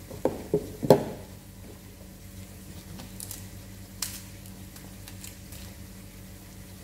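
Crisp lettuce leaves being torn apart by hand, with a few sharp snaps in the first second, the loudest about a second in, and another about four seconds in. A low steady hum sits underneath.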